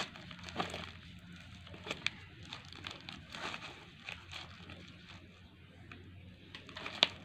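Long knife cutting and prying through a jackfruit's spiky rind and fibrous flesh, with scattered crackles and rustles from the fruit and the woven sack under it, and a sharp click about seven seconds in.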